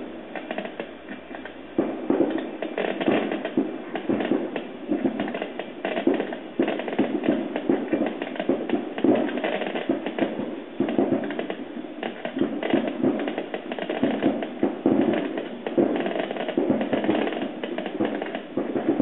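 Fireworks display going off in a dense, continuous barrage of sharp bangs and crackles, heard through a television's speaker.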